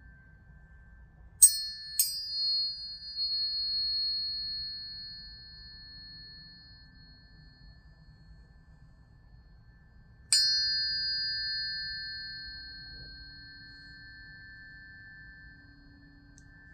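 Planetary tuning forks struck and left to ring. Two sharp metallic strikes come about half a second apart about a second and a half in, and another comes about ten seconds in. Each strike leaves a high, pure ringing tone that slowly fades, while a lower tone keeps ringing throughout.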